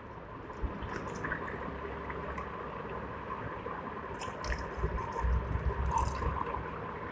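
Carbonated soft drink poured from a stainless steel bowl into glasses, a steady trickle and splash of liquid, louder and more uneven about four to six seconds in as the second glass fills.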